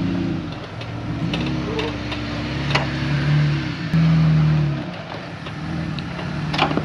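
Lifted Jeep rock crawler's engine pulling it up a steep rock ledge, the revs rising and falling as the driver feeds throttle, with a harder push about four seconds in. A few sharp knocks are heard along the way.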